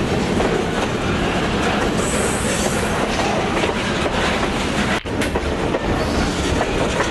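HO scale model freight cars rolling past on the track, their wheels clattering steadily over the rail joints. A thin high squeal comes in for about a second around two seconds in, and the sound drops out for an instant near five seconds.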